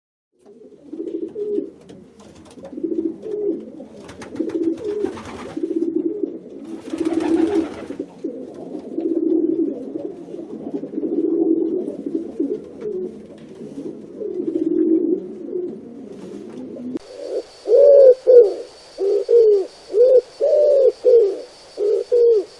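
Domestic pigeons cooing in repeated low, rolling phrases, with a couple of brief noisy rustles in the first half. After about seventeen seconds the recording changes abruptly to louder, shorter and slightly higher coos, about one or two a second, over a faint steady high whine.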